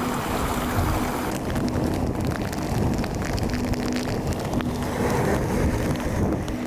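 Strong wind buffeting the microphone in a steady rumble, with a faint low hum underneath and light crackling ticks.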